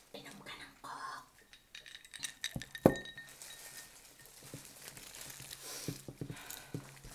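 A drinking glass clinks sharply once as it is set down on the table, about three seconds in, with a brief ringing tone after it. Around it come quieter small knocks and rustles of eating.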